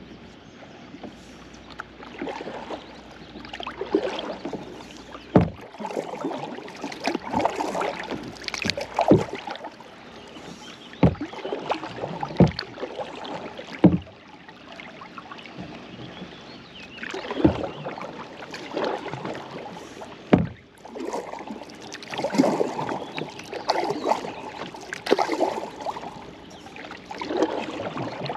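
Kayak paddle strokes splashing and dripping in the water, with a sharp knock every few seconds.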